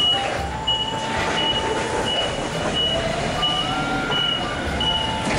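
Nissan forklift reversing out of a trailer, its backup alarm beeping about once every 0.7 seconds over a low rumble and a few wavering whining tones.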